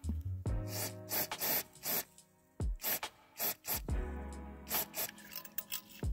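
Aerosol penetrating lubricant sprayed through a straw onto a seized diesel glow plug, in a series of short hissing bursts, over background music.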